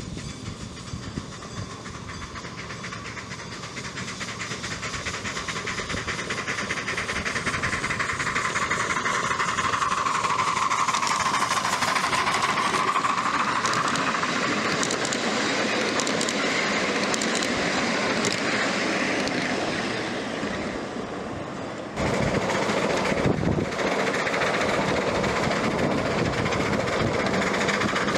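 Miniature 7.5-inch gauge train running on its track, wheels clicking over the rails, growing louder over the first several seconds as it draws near. The sound changes abruptly about 22 seconds in to another stretch of train running.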